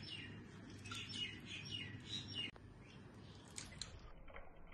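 Faint bird chirping: a quick run of short chirps that stops abruptly about two and a half seconds in.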